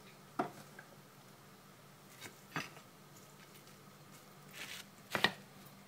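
Three light, sharp clicks about two seconds apart and a short rustle just before the last one, from a hand handling a plate and a sprig of curry leaves, over a faint steady hum.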